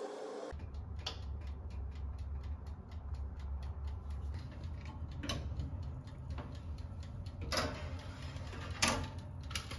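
Soft, even ticking over a low steady hum, with a few sharper clicks and knocks near the end as a metal baking tray is slid into a small toaster oven.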